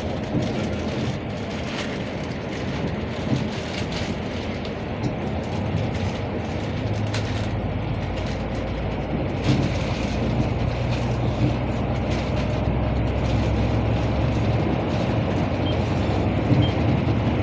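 Steady road traffic noise, with a heavy vehicle's engine hum growing louder from about seven seconds in.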